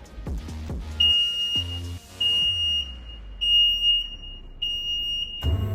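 Rothenberger CNC butt fusion machine's buzzer beeping four times, each a steady high-pitched beep lasting about a second, as the machine starts its automatic cycle and drag-pressure test.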